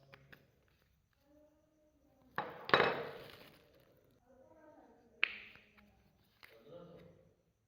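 Hands squishing and slapping clay slime: soft squelches and two sharp slaps, the louder about two and a half seconds in and the other about five seconds in.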